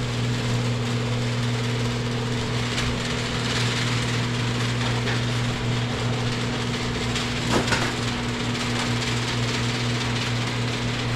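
A machine running steadily with an even, low hum and a constant hiss.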